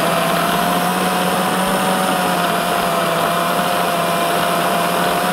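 Electric food processor motor running steadily at full speed, blending a minced meat and soy burger mixture, with a steady hum.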